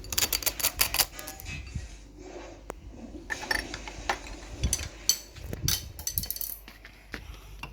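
Eating utensils clinking against dishes: a quick run of clinks in the first second, then scattered single clinks.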